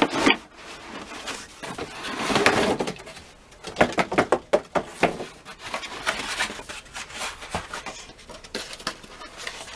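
Unboxing noises: cardboard box and molded pulp packing being handled, with a scraping slide about two seconds in as the packing comes out, then a cluster of sharp knocks and scattered lighter taps as the pulp tray and mirror parts are set down and picked over.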